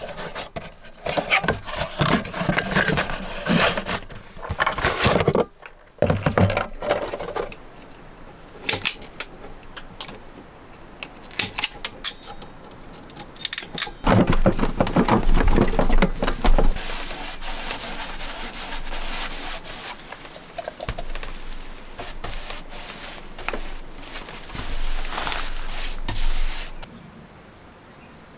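Irregular scraping, knocking and rustling from hand work with tools and materials, with louder busy stretches near the start and in the middle. It stops shortly before the end.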